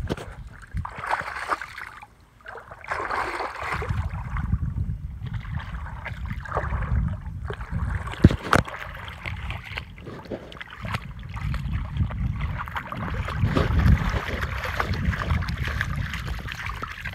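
A dog wading in shallow water, the water sloshing and splashing around its legs, with a low rumble from about three seconds in and one sharp click a little past the middle.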